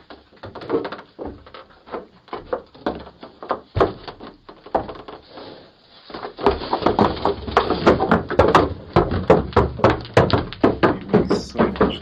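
Hooves of cows knocking on a wooden porch deck, a run of uneven thuds that grows louder and more frequent about six seconds in.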